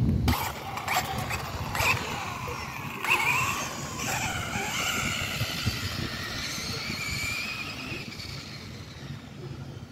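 Wltoys 104001 1/10 RC buggy's 3000kv brushless motor, on a 4S battery and 80A ESC, whining as it accelerates away over asphalt; the pitch rises and falls with the throttle and the whine fades as the buggy gets farther off.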